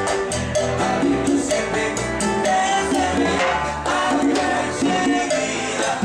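Upbeat Latin dance music: a singing voice over percussion and band instruments with a steady beat.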